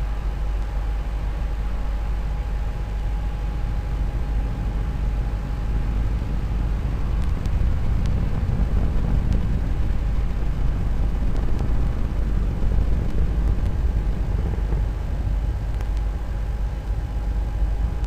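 Falcon 9 first stage's nine Merlin 1D rocket engines firing during ascent: a steady, unbroken low rumble, with first-stage propulsion running nominally.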